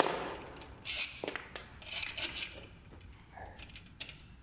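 Light clicks and clinks of small plastic and metal parts handled against a metal tube leg while fitting a table tennis table's gravity lock: a sharp click at the start, then scattered short clicks and rattles.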